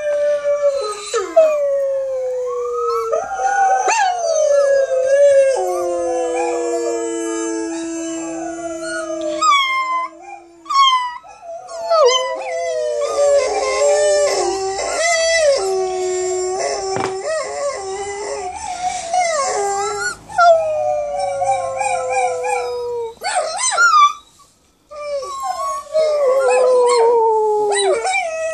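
Chinese Crested Powderpuff puppy howling, still learning how, along with a dog's howls played from a laptop. Long howls that slide down in pitch, at times two voices overlapping, with short breaks between.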